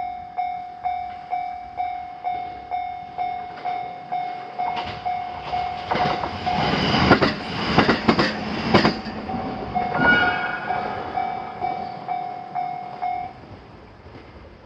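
Japanese level-crossing warning bell ringing a repeated electronic tone about twice a second while a JR Sotobo Line train passes through the crossing, its wheels clattering over the rail joints, loudest about seven to nine seconds in. The bell stops about thirteen seconds in.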